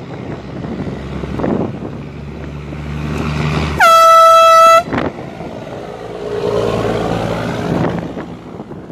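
Air horn blasting once for about a second, one steady high note, over a low background rumble.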